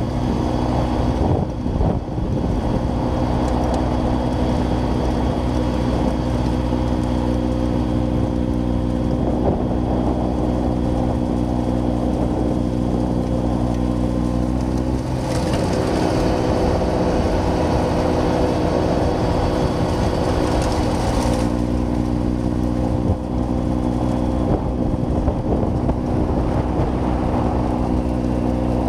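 John Deere 6110R tractor's diesel engine running steadily under load, driving a rear-mounted snowblower as it clears a drift. The engine note shifts slightly about halfway through, and a brighter hiss joins for several seconds before easing off.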